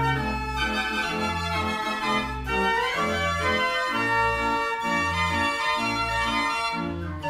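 Background organ music: sustained keyboard chords over a bass line that pulses steadily.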